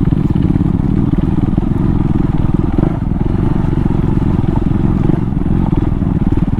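KTM Duke 390's single-cylinder engine running steadily under way, its exhaust open with the dB killer removed.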